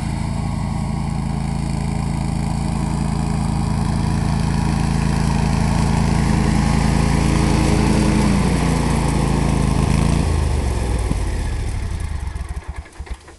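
2002 John Deere Sabre 2354HV garden tractor's engine running steadily while mowing with its 54-inch deck, then slowing to a lower pitch about eight to ten seconds in and dying away near the end.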